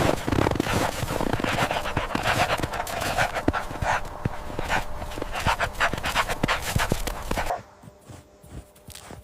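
A puppy panting noisily, with rapid breaths and crackly mouth noises, until the sound cuts off sharply about seven and a half seconds in.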